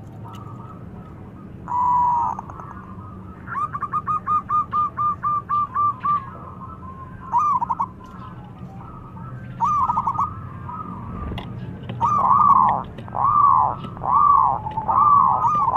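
Zebra dove (perkutut) cooing. It gives a fast run of about ten short, evenly spaced notes, then, near the end, a string of longer coos that each rise and fall in pitch, over a faint steady low hum.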